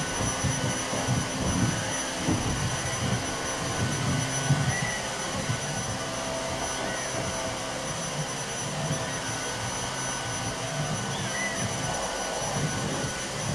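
Vacuum cleaner running steadily, a constant whirring noise with a high whine, with uneven low bumps as it is pushed around.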